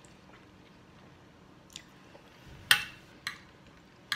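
Close-up mouth sounds of a person eating spaghetti: quiet chewing, then from about halfway a few short, sharp, wet smacks, the loudest a little past the middle.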